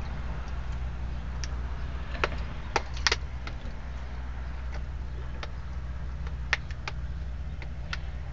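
Steady low hum of a vehicle engine running, with scattered sharp crackles and clicks from a plastic water bottle being squeezed and sucked on at the mouth, a cluster of them about three seconds in.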